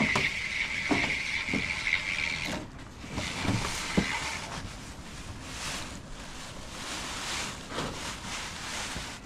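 Plastic roofing membrane rustling and crackling as it is unrolled over roof trusses, with a few light knocks and wind on the microphone. A steady high tone runs through the first couple of seconds and fades out.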